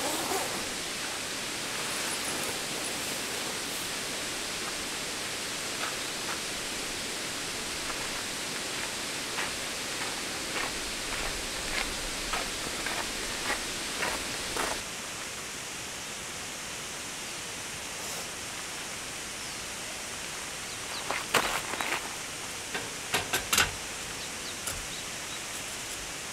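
Steady rushing outdoor noise, like running water, with scattered light clicks and a short cluster of sharper knocks about two-thirds of the way through.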